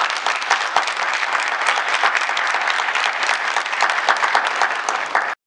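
Audience applauding, a dense patter of many hands clapping that stops suddenly near the end.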